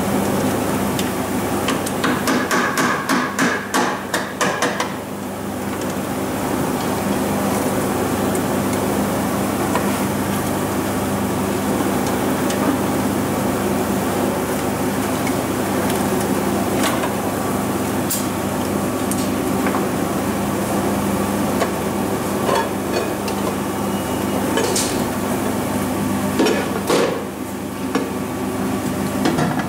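Metal lathe running with a CD4E torque converter spinning in its chuck while the tool cuts through the converter's welded seam to open it; the machine hum is steady. Between about two and five seconds in comes a quick run of sharp metallic knocks, about four a second, and a few single clicks follow later.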